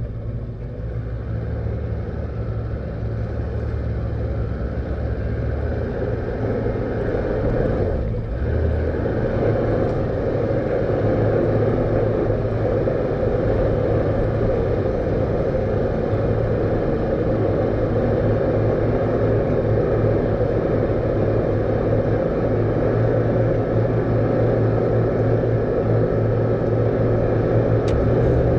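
Steady low rumble with a few held low tones, growing gradually louder, with a brief dip about eight seconds in.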